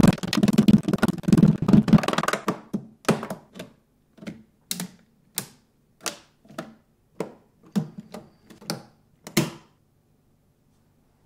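Plastic Lego Technic beams, pins and connectors clicking and clacking as they are snapped together by hand. A dense flurry of clicks for the first few seconds gives way to single sharp clicks just under two a second, which stop shortly before the end.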